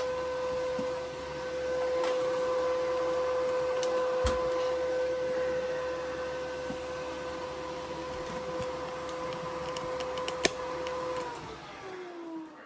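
AC/DC TIG welder running with a steady hum from its cooling fan. About eleven seconds in it is switched off and the pitch falls as it winds down. A couple of sharp clicks come along the way.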